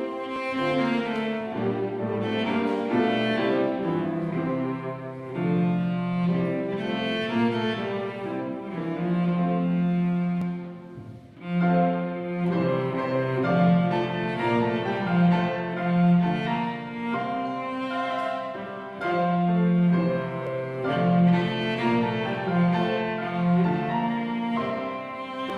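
Cello and grand piano playing together, the cello's long bowed notes over the piano, with a short break between phrases about eleven seconds in.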